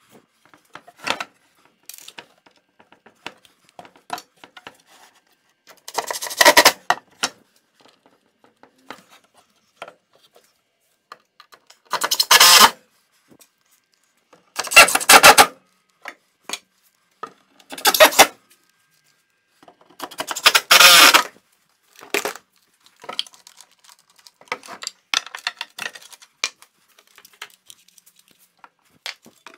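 A cordless drill running in five short bursts, driving screws to fix a plywood rack to the wall, with light clicks and clatter of handled tools and fixings between the bursts.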